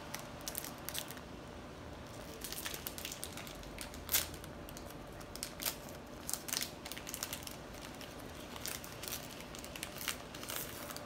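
Foil-lined plastic snack-cake wrapper crinkling and crackling in irregular bursts as it is torn and peeled open by hand.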